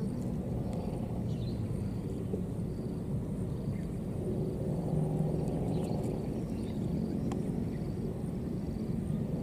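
Outdoor ambience: a steady low rumble with faint, high chirps of birds or insects.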